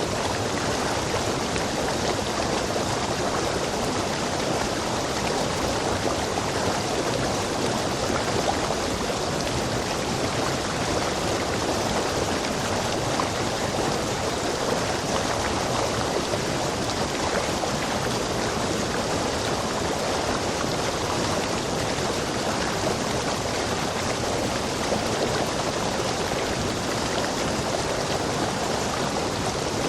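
Rainforest stream, water rushing over rocks in a steady, unbroken flow.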